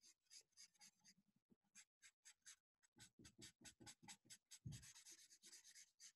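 Felt-tip marker hatching on paper: quick short strokes, about five or six a second, coming thicker and faster in the second half, with one soft low bump about three-quarters through.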